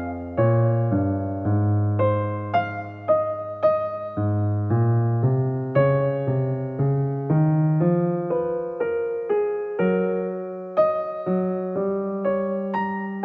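Background piano music: a gentle melody of single struck notes over sustained bass notes, at an unhurried pace.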